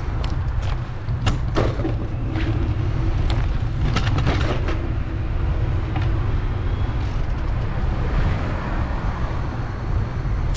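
Street noise heard while riding through a town: a steady low rumble with traffic, broken by scattered sharp clicks and rattles, most of them in the first half.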